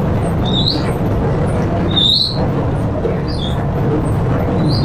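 Electric bread-dough mixer running with a steady motor hum, with a short high squeak recurring about every second and a half.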